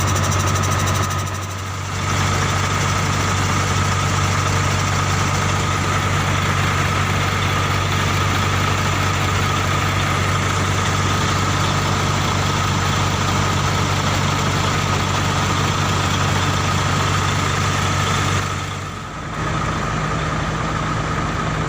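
Heavy diesel truck engine running steadily at idle, with a steady high whine over a deep drone. The sound drops briefly about a second and a half in and again near the end.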